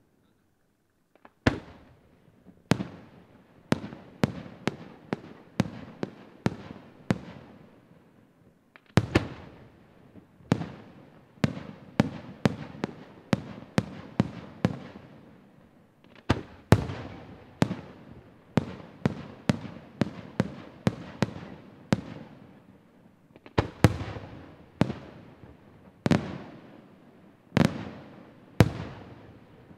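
Aerial firework shells bursting in quick succession, roughly one or two sharp bangs a second, each followed by a rolling echo. The bangs start about a second and a half in.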